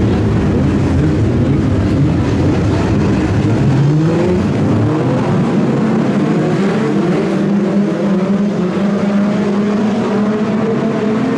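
Several BriSCA F2 stock car engines running together on the track, one revving up with a rising pitch about three seconds in, then a steady engine drone.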